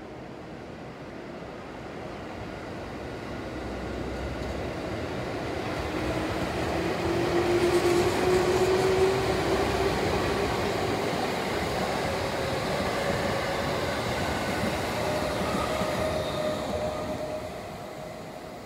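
Eight-car JR Central 311 series and 313 series electric train passing close by, with rail noise and a motor whine that climbs steadily in pitch as it gathers speed. The sound swells to its loudest as the cars go by and drops away as the last car passes near the end.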